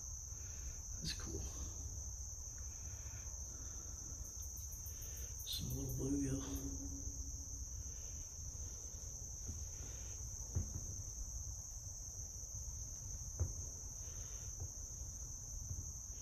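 A steady, high-pitched drone of an insect chorus, over a low rumble. Two sharp clicks come in the second half.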